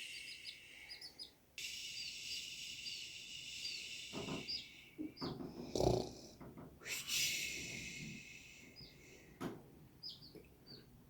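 Drowsy chicks making short, faint high peeps over a steady high hiss, the sleepy sound called snoring. A few dull thumps come in between.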